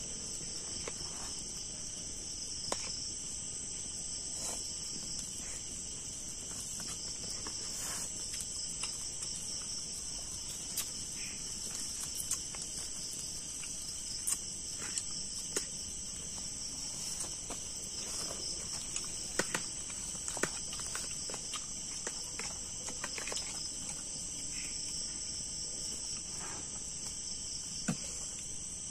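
Steady high-pitched chorus of night insects, crickets among them, with scattered light clicks and taps here and there.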